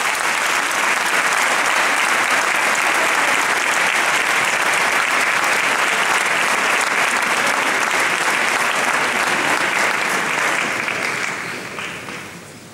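Audience applauding: a dense, steady clatter of many hands clapping that fades away over the last couple of seconds.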